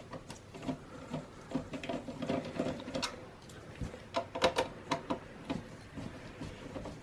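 Phillips screwdriver taking out the screws at the back of a Dell Optiplex 3020 small-form-factor computer case: irregular small clicks and scrapes of the driver tip and screws.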